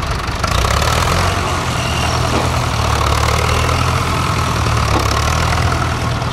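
Fordson Major tractor's engine running steadily as the tractor drives off across the grass, getting louder about half a second in.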